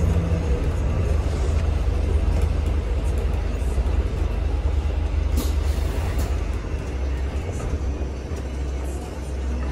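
Interior noise of a Volvo B5L hybrid double-decker bus on the move, heard from the upper deck: a steady low rumble from the drivetrain and road, with a brief rattle about five seconds in. The rumble eases slightly and pulses near the end.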